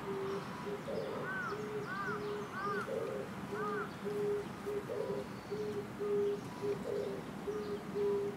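Birds calling: a long, even run of short, low hoot-like notes, with four higher, arching chirps in the first few seconds.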